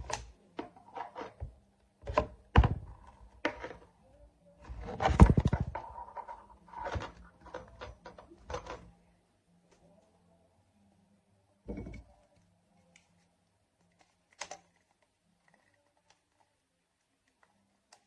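A series of short knocks and clicks, closely spaced in the first half, with a brief creaking rattle about five seconds in. After that there are only a few isolated knocks.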